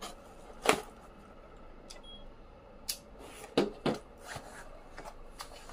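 A cardboard subscription box being opened by hand: a few sharp knocks and rustles of box and packaging, the loudest under a second in.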